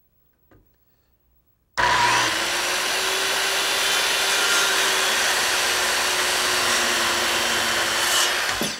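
Electric circular saw cutting an angled end through a 2x4 pine board. It starts suddenly about two seconds in and runs steadily, a constant motor hum under the noise of the blade through the wood, then stops near the end.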